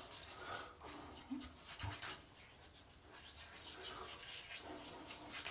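Faint, soft rubbing of hands spreading and massaging a brushless shave cream over the face as a pre-shave.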